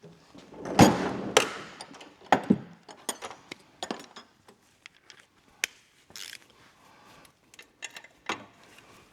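Hand tools clinking and knocking against metal parts during exhaust manifold removal, with a louder rasping stretch about a second in followed by scattered sharp clicks and clanks.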